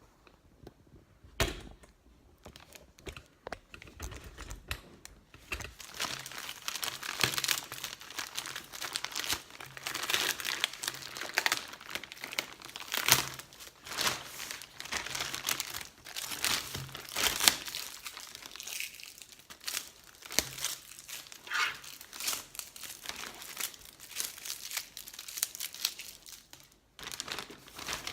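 Parcel packaging being torn open and handled: a long stretch of crinkling and tearing with scattered sharp crackles. It starts about five seconds in and stops shortly before the end, after a single sharp click about a second and a half in.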